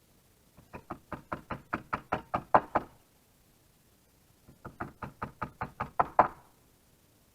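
Hammer blows in two quick runs, about a dozen strikes each at roughly five a second, the strikes getting louder toward the end of each run.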